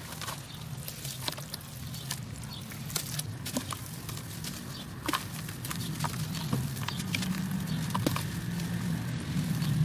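Hands crumbling and squeezing lumps of dry and wet dirt into a steel basin of water: irregular crunches and crackles with small bits pattering down, the sharpest snap about five seconds in. A low steady hum runs underneath.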